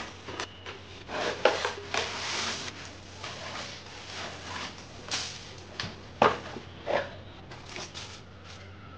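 Projector packaging being unboxed by hand: scattered knocks and clicks of cardboard and plastic, with a longer rustle about two seconds in.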